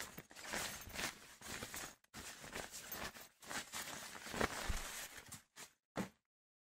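Fabric backpack rustling as a hand rummages inside it, in uneven scrapes and rustles with a couple of short pauses, ending with one short rustle.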